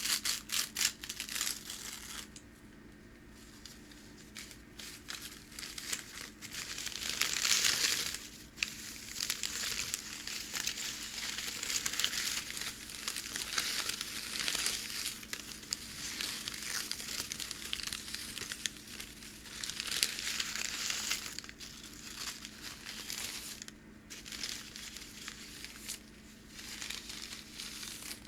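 Packing paper handled by hand, crinkling and crackling in uneven swells as it is folded, crumpled and smoothed, with a quieter stretch a few seconds in.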